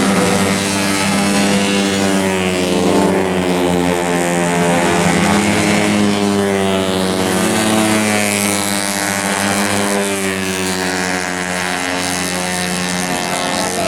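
Engines of tuned 130 cc automatic scooters racing: several engine notes at once, their pitch rising and falling.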